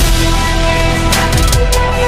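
Background music with a steady beat and drums, with held notes entering about half a second in.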